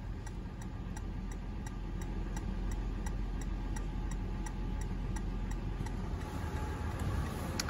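2022 Toyota 4Runner's hazard warning flasher ticking in a steady, even tick-tock, with the 4.0 L V6 engine idling underneath.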